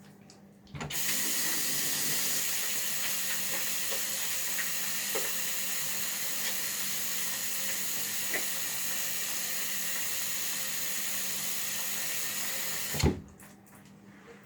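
Water running from a sink tap while something is washed off under it: the flow comes on suddenly about a second in, runs steadily, and shuts off near the end with a knock.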